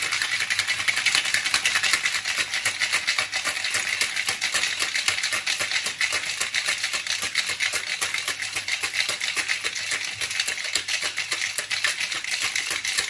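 A stainless steel cocktail shaker being shaken hard, with ice rattling inside it in a fast, continuous clatter.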